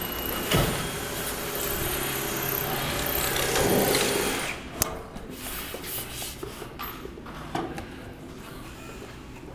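A power drill running steadily for about four and a half seconds, then stopping, followed by a sharp click and a few light knocks from handling the metal.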